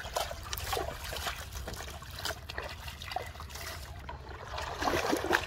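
Shallow river water splashing and dribbling around hands and a floating plastic basin, a run of small irregular splashes and drips, with a louder flurry of splashing near the end.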